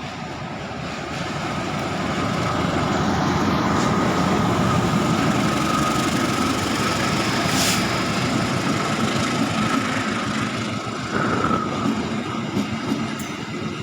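Diesel locomotive engine running, with a steady high whine over a low rumble; it grows louder over the first few seconds and then holds.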